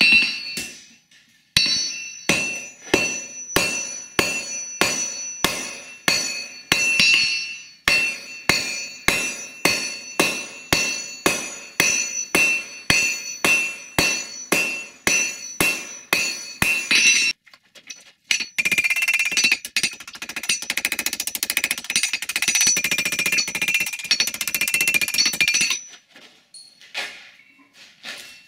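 Hand hammer forging a hot steel knife blade on an anvil: about two blows a second, each leaving the anvil ringing. After a short pause, a long run of rapid blows follows, then a few last strikes near the end.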